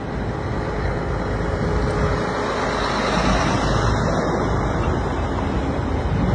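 Convoy of Mercedes-Benz Actros heavy trucks passing close by: a steady rumble of diesel engines and tyre noise that swells to its loudest about three to four seconds in, as a truck towing a long low-loader trailer goes past.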